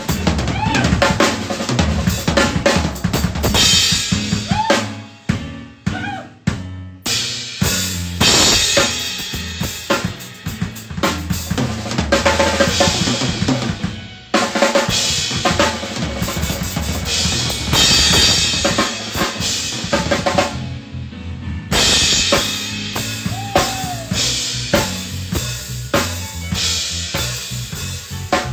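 Drum kit played in a fast, busy pattern: bass drum, snare and rimshots with cymbals, broken by a few short pauses.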